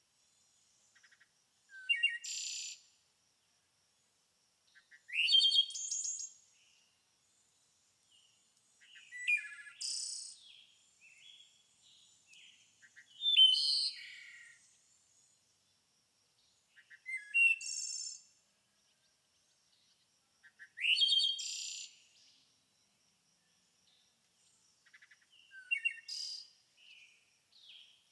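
A songbird singing: short phrases of quick chirps and rising whistles, one about every four seconds, with quiet between them.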